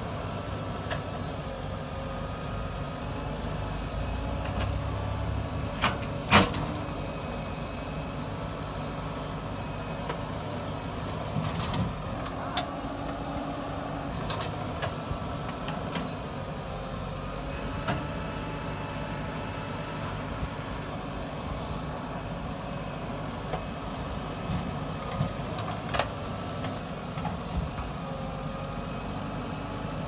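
JCB 3DX backhoe loader's diesel engine running steadily while the backhoe digs and loads soil, with scattered sharp clanks and knocks from the bucket and arm. The loudest knock comes about six seconds in.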